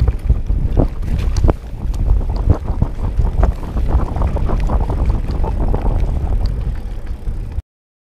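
Wind rumbling on the camera microphone with the rattles and knocks of a Specialized Rockhopper Comp 29 mountain bike rolling fast over a rough grassy trail. It cuts off suddenly near the end.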